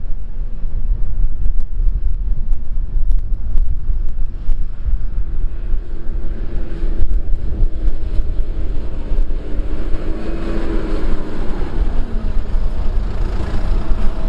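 Fendt 414 tractor engine running as the tractor drives past hauling a loaded manure trailer: a steady low engine note, with a whine that rises and then falls in pitch in the second half.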